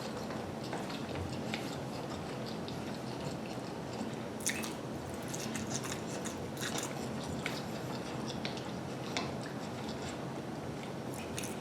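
A person chewing lo mein close to the microphone: wet mouth sounds with many small irregular smacks and clicks, a few sharper ones now and then.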